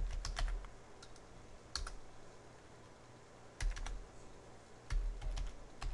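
Computer keyboard being typed on: short bursts of keystroke clicks with pauses of a second or more between them.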